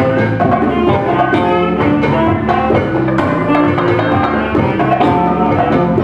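A live band playing together: a drum kit keeps a steady beat under held melodic lines from saxophone and other wind instruments, with electric guitar.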